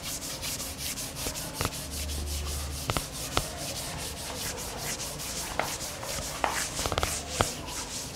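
Chalkboard eraser rubbing across a blackboard in quick, repeated back-and-forth strokes, wiping off chalk writing. A few sharp knocks are heard among the strokes.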